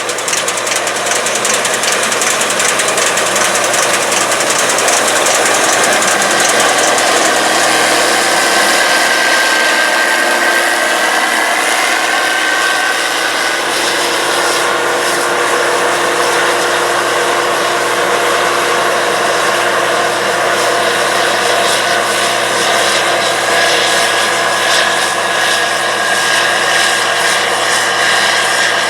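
Harvest machinery running steadily with a dense mechanical noise and a sustained high whine that drifts slightly in pitch.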